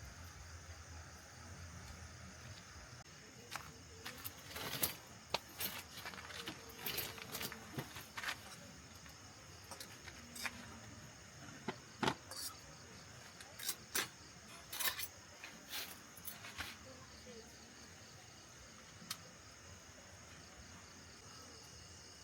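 Insects chirring steadily in the background, with a run of irregular sharp clicks and clinks from about three seconds in until past the middle.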